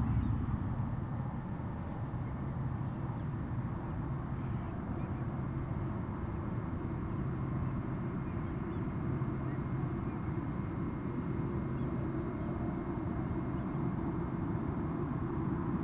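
Distant jet noise from a Gulfstream G-IV's Rolls-Royce Tay turbofans as it lands: a steady low rumble with a faint, even high whine.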